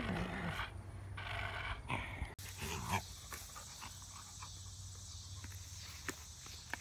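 Rhodesian ridgeback–pit bull mix dog making noisy breathing and grumbling sounds with a stick in its mouth. After about two and a half seconds it goes quieter, with a few sharp clicks as the dog chews the stick.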